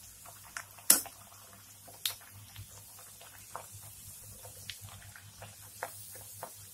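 Poori deep-frying in hot oil in a wok, the oil crackling in scattered small pops while it is pressed under a slotted spoon. There is a sharp click about a second in and another about two seconds in.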